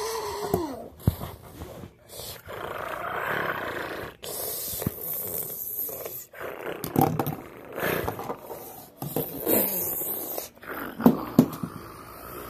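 A person making battle noises with the mouth: growling, roaring and rasping explosion sounds in a string of bursts with short breaks.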